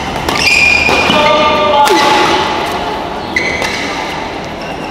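Badminton rally in a hall: rackets strike the shuttlecock several times, sharp cracks about a second and a half apart, with short high squeaks and voices between the hits.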